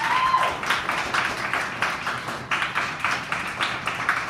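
Audience applauding with dense, fast clapping, with one brief high cheer that rises and falls near the start.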